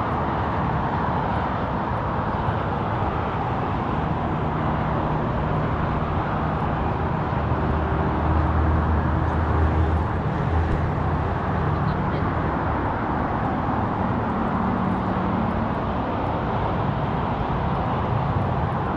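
Steady rumble of distant road traffic, with a low engine hum swelling briefly about halfway through.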